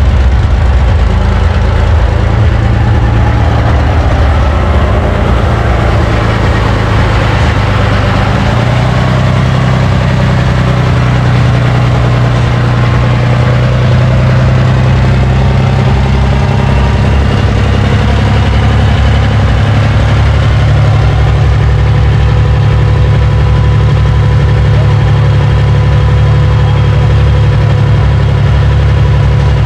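Turbocharged six-cylinder engine of a modified John Deere 4020 pulling tractor idling loudly and steadily through its open straight stack, its note shifting slightly about nine seconds in.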